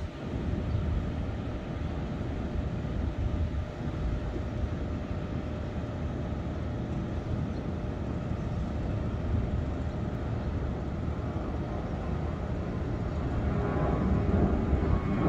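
Jet airliner climbing after takeoff: a steady low rumble that grows louder near the end.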